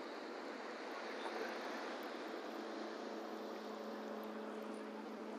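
Boat motor running steadily: an even hum under a hiss of wind and water.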